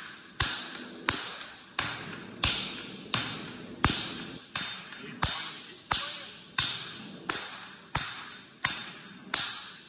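Hammers striking red-hot knife steel on a steel anvil: a steady rhythm of about three blows every two seconds, each a sharp metallic ring that dies away before the next.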